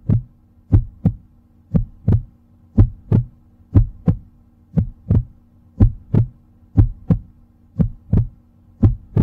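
Heartbeat sound effect: paired low thumps, lub-dub, about one beat a second, over a faint steady low drone.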